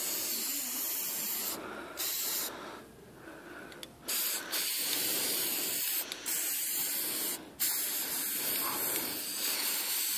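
Aerosol spray-paint can spraying white paint in long hissing bursts, with a pause of about a second and a half a few seconds in and short breaks later on.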